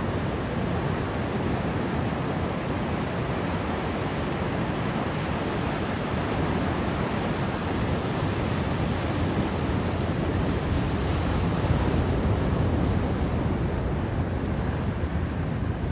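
Ocean surf washing steadily on a beach, mixed with wind buffeting the microphone, growing slightly louder about two-thirds of the way through.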